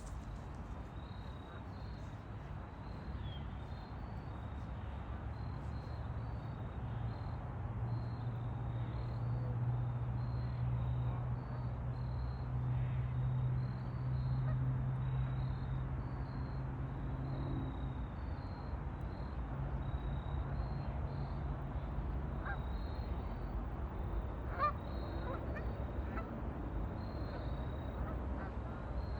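Ducks calling on a lake, over a steady low hum that swells through the middle and fades, with a faint high chirp repeating evenly throughout.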